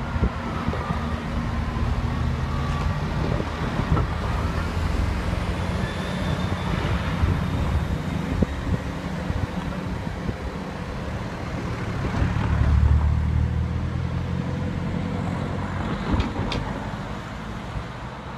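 Class 158 diesel multiple unit's underfloor diesel engines running as the train pulls away, a steady low drone that swells about two-thirds of the way through and then fades as it draws off into the distance.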